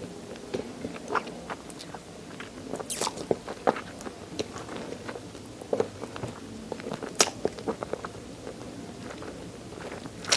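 Close-up chewing and biting on chicken neck with its bones: irregular crunches, cracks and wet mouth sounds, with the sharpest bone cracks about three and seven seconds in.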